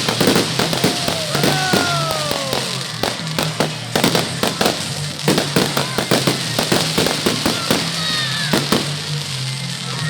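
Fireworks going off: a rapid, irregular run of bangs and crackling reports.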